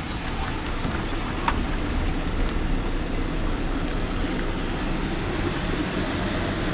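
Steady low rumble of a car on the road, its engine and tyre noise running evenly, with a few faint clicks.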